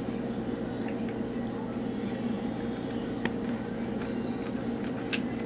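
A metal fork clicking lightly against a stemmed glass a few times, the clearest about three seconds in and again near the end, as a man eats, over a steady low hum.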